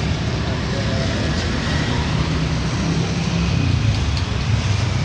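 Steady road traffic: a continuous low engine rumble from passing motor vehicles, with an even hiss of road noise over it.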